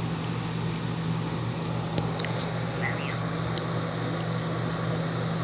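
Steady low electrical-sounding hum with an even hiss underneath, broken only by a few faint small clicks about two seconds in.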